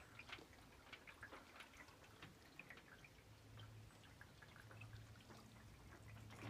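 Near silence with faint, scattered drips and small ticks of water, and a faint low hum setting in about three seconds in.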